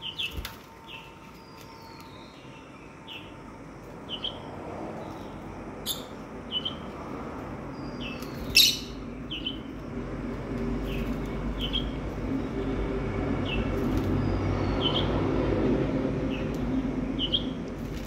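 Lovebirds giving short, high, falling chirps over and over, about one or two a second, while they feed. A sharp click comes about halfway, and a low rustling noise swells through the second half.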